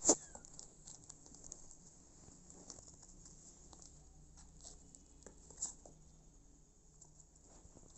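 Kittens' claws scratching and pattering on denim and cardboard as they clamber about, a run of small scrapes and clicks. A sharp knock just at the start is the loudest sound, with a smaller one about five and a half seconds in.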